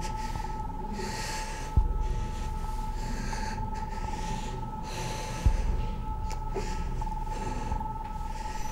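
A person breathing heavily and repeatedly, over a steady high drone and a low rumble. Two deep booms come about two seconds in and again about five and a half seconds in.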